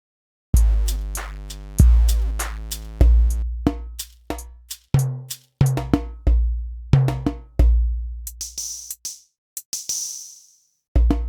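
Korg Triton Extreme VST drum kit sounds playing a programmed electronic drum pattern, starting about half a second in: deep, long-ringing pitched kick drum booms under sharp snare and hi-hat hits. A hissing wash comes in near the end, then the pattern carries on.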